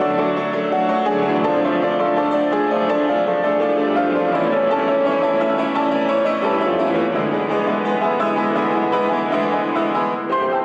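Steinway grand piano playing a dense, continuous passage of many notes, with an orchestra behind it.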